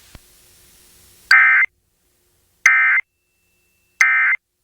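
Three short bursts of Emergency Alert System digital data tone, a warbling two-tone screech, about a second apart: the End of Message code that closes the alert.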